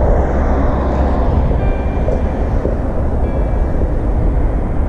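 Wind buffeting the camera microphone: a loud, uneven low rumble under a steady hiss.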